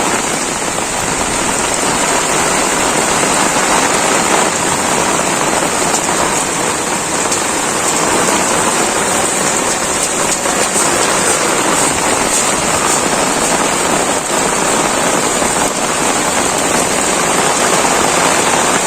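Heavy rain pouring down, a loud, steady hiss that holds throughout and cuts off sharply at the end.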